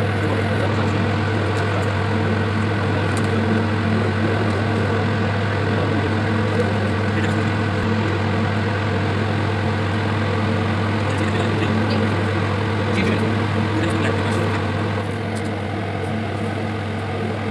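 Steady low machine hum of kitchen equipment, with a few faint clicks.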